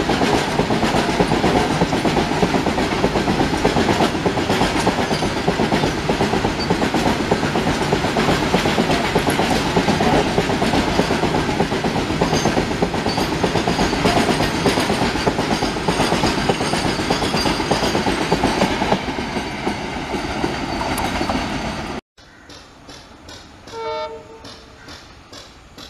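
Loaded freight wagons rolling past close by: a steady, dense rumble and clatter of wheels on the rails. About 22 seconds in the sound cuts abruptly to a much quieter scene, and a couple of seconds later an approaching diesel locomotive gives a short horn blast in the distance.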